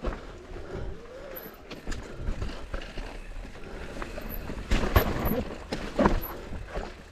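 Intense Tazer MX Pro electric mountain bike riding fast down a rough dirt trail: a steady low rumble of tyres on dirt, with rattling and sharp knocks from the chain, frame and suspension as it hits roots and rocks. The knocks are heaviest in the second half.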